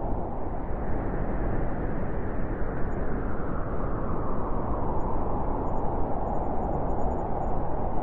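Blizzard wind blowing hard and steadily, a deep rushing noise whose higher hiss slowly rises and falls as the gusts swell and ease.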